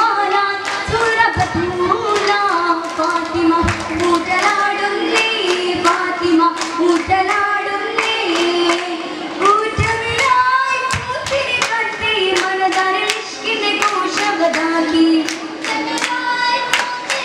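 Oppana performance: girls singing a Mappila song in chorus, with the dancers' hand claps keeping a quick, rhythmic beat.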